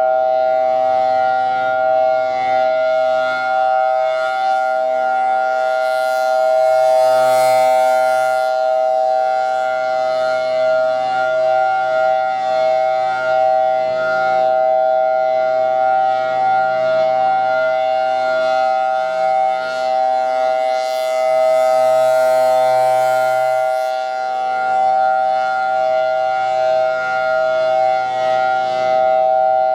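Federal Signal Thunderbolt 1003 rotating warning siren sounding a steady tone at constant pitch, a monthly test. Its sound swells twice, about fifteen seconds apart, as the rotating head sweeps past, with a hiss of air over the tone at its loudest points.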